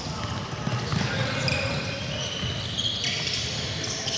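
Basketball game on an indoor court: the ball bouncing on the floor, with short high squeaks of shoes and a hum of faint voices in the hall.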